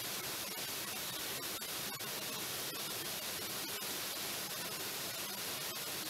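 Small waterfall pouring over rocks into a pool: a steady, even rush of falling water.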